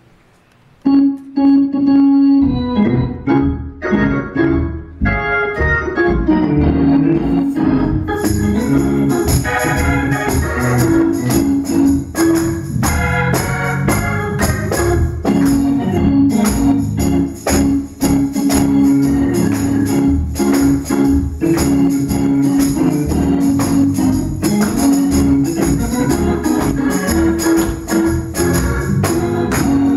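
Organ, Hammond-style, playing gospel chords and runs that start about a second in. About eight seconds in, a rhythmic percussion beat of short sharp strokes joins it.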